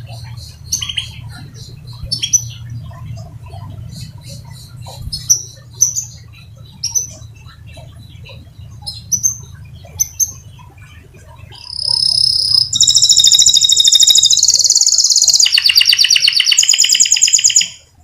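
Domestic canary giving short, scattered high chirps, then about twelve seconds in breaking into loud rolling song, a run of fast trills that shifts lower in pitch partway through and stops abruptly just before the end. A low steady hum runs under the chirps.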